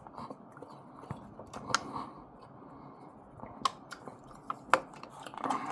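A person chewing food close to the microphone, with a few sharp clicks.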